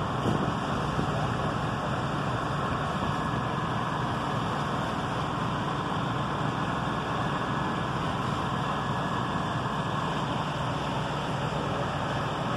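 Steady rumble of idling engines and street traffic, with a faint even hum throughout.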